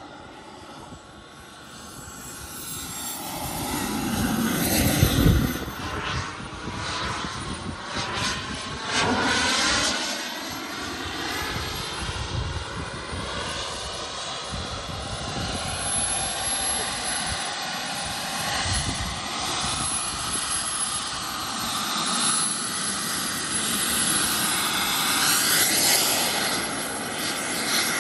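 Radio-controlled model jet's turbine running throughout as the jet flies low over the field. Its whine sweeps up and down in pitch as it passes and manoeuvres, loudest on a close pass about five seconds in and swelling again near the end.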